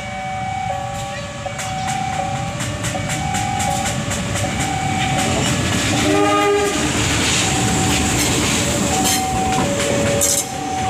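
KAI diesel locomotive running light, passing slowly with its engine rumbling. About six seconds in it gives one short horn blast, the driver's greeting to onlookers. Under it the level-crossing warning alarm keeps up its alternating two-note chime.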